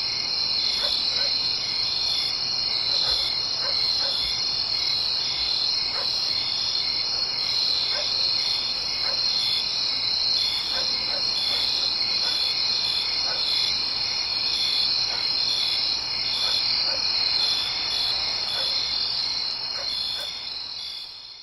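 Crickets chirping in a steady, high, pulsing chorus as a night-time ambience, with faint scattered clicks, fading out at the very end.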